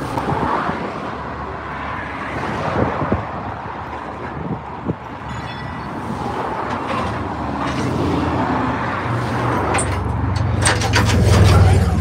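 A motor vehicle engine running among road traffic noise. A low engine rumble builds in the second half and is loudest near the end, with a few sharp clicks.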